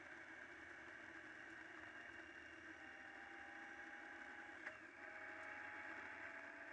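Faint, steady running noise of a touring motorcycle on the move, engine and wind, with a single click about four and a half seconds in.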